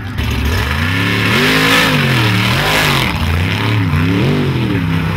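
Mud truck's engine revving hard, its pitch rising and falling three or four times as the driver works the throttle through the mud pit, with a hiss of wheels flinging mud.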